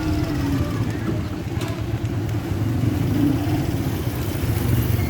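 Motorcycle engine running steadily while riding, a continuous low drone.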